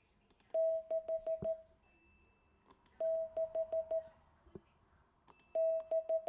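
Morse code for the digit six (dah-di-di-di-dit), sent three times as a steady mid-pitched CW sidetone beep from an Icom IC-7300 transceiver, with a faint click at each element.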